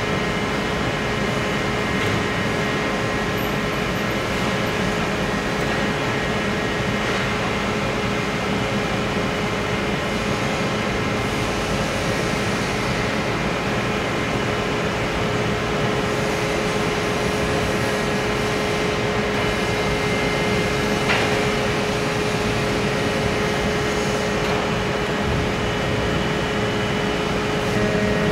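Steady hum and whir of leaf-spring taper-line machinery running, with a steady tone over the noise. There is one short click about three quarters of the way through.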